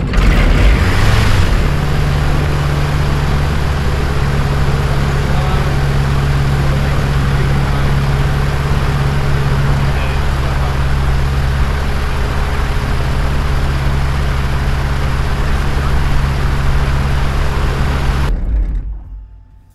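Sling TSi's Edge Performance Rotax-based aircraft engine catches and runs steadily, propeller turning, then is shut down near the end and winds down to a stop. This is the short first test run of the newly installed engine, kept to under 20 seconds.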